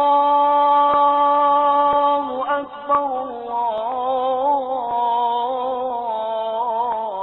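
Chant-like intro music: a held, steady chord for about two and a half seconds, then a slow wavering melody.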